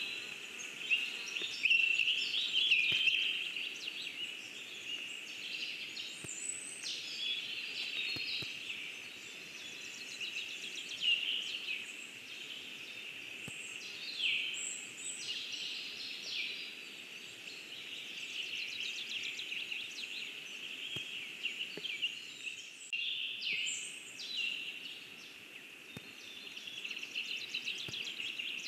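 Several small songbirds singing at once, their high songs and quick trills overlapping.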